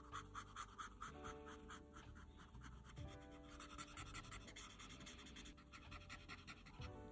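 Faint scratching of a marker tip rubbed over paper in short repeated strokes while colouring, with soft background music under it.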